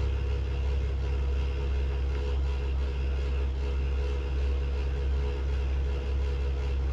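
A steady low mechanical hum with a fainter drone above it, unchanging and without any sharp sounds.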